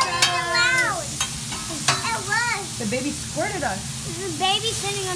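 Food sizzling on a steel teppanyaki griddle, with a few sharp clicks of the chef's metal spatula against the steel. Short high-pitched children's voices call out over it now and then.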